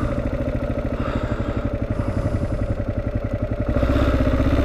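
Kawasaki KLR650's single-cylinder engine idling with an even beat, growing louder near the end as the throttle is opened when the light turns green.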